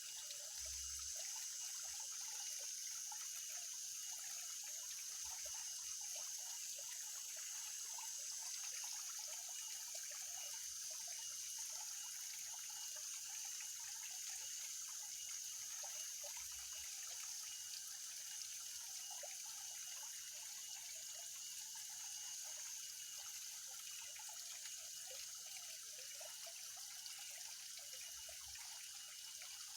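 Water trickling and dripping into a pond, with a steady high-pitched buzz running over it.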